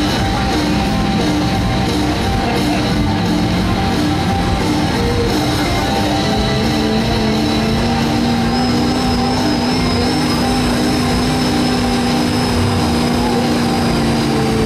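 Loud rock music with guitar mixed with a stock gasoline pickup engine running hard as the truck pulls a weight-transfer sled. The engine holds steady at high revs through the second half.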